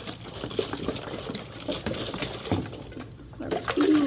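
Water swirling and sloshing inside a tornado-in-a-bottle, two bottles joined neck to neck, as it is spun round and round, with small irregular splashes and knocks. A brief voice comes in near the end.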